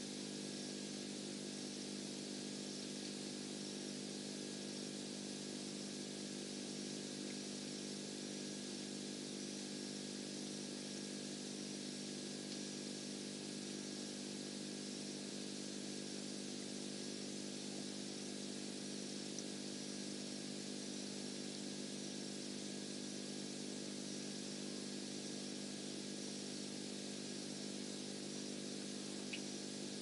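Steady low hum under a constant hiss, with one faint click near the end; no owl call.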